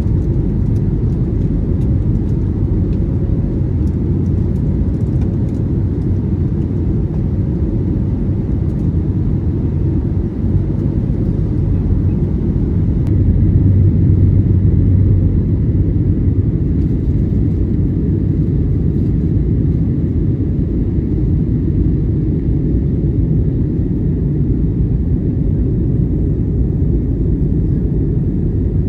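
Steady low rumble of cabin noise inside an Airbus A321neo airliner, swelling slightly about halfway through.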